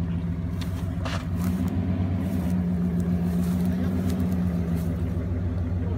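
Jeep Grand Cherokee's engine held at steady high revs while its wheels spin in deep mud, with a few sharp knocks from mud and debris striking the vehicle.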